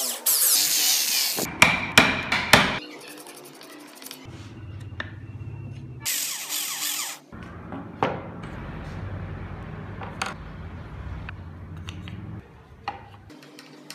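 Power tools working wood: a rotary tool drilling into the carved wooden body at the start, followed by a few loud knocks. About six seconds in, a cordless drill runs briefly into a wooden part.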